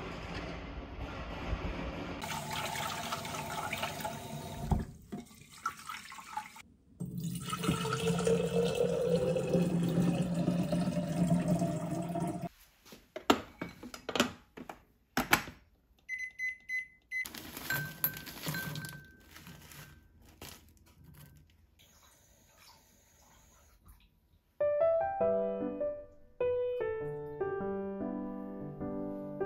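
Tap water running into a rice cooker's inner pot, its pitch rising as the pot fills. Then the clatter of the pot being set into the cooker and short electronic beeps from the cooker. Background music comes in near the end.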